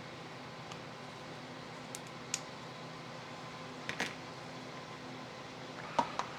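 A few light clicks and taps of small shock-absorber parts being handled, over a steady low hum.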